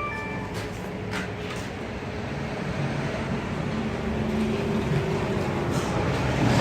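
Street traffic noise, a low rumble that grows steadily louder, with a few faint clicks.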